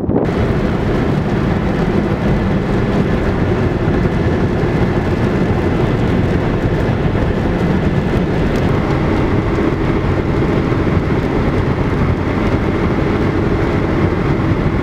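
Steady road and wind noise inside the cabin of a moving car, with a faint constant hum under it.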